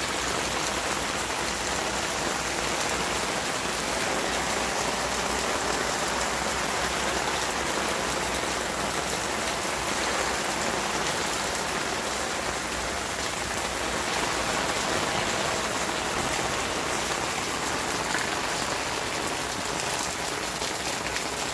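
Rain falling steadily on pavement and the ground, an even hiss with no break.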